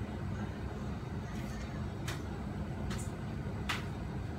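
Steady low kitchen rumble, with three short, light clicks about two, three and three and a half seconds in.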